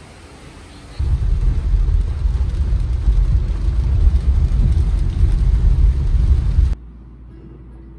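Steady hiss of heavy rain for the first second, then a loud low rumble of a car driving on a wet road in heavy rain, heard from inside the cabin with a hiss over it. The rumble cuts off suddenly near the end.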